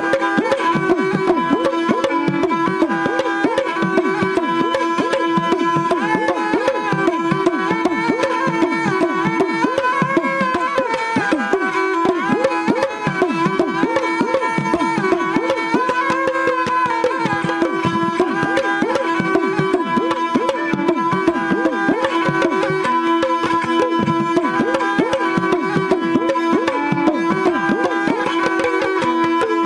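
Dhadi instrumental interlude: a bowed Punjabi sarangi plays the melody while dhadd hourglass drums beat a quick, steady rhythm over a held drone note.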